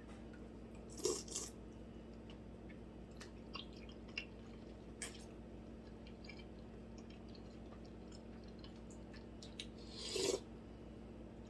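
Close-miked eating: faint chewing and small mouth clicks, with two louder short bursts of bite or chew noise, one about a second in and one near the end.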